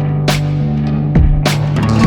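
Background music without vocals: a steady beat of drum hits over sustained low notes and chords.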